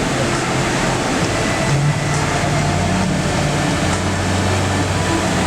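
Rushing water of the Imatrankoski rapids, a steady loud roar of white water.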